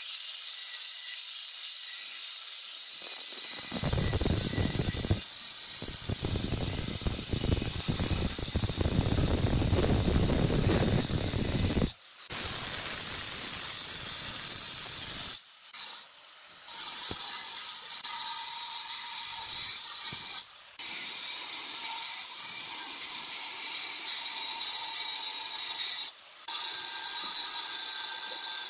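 Handheld angle grinder with a sanding disc running at speed against the cut edge of a granite slab, a steady high whine with grinding hiss. From about 4 to 12 seconds the disc bites harder into the stone and the grinding is louder and coarser. It then goes back to a lighter, even grind, broken by a few very short gaps.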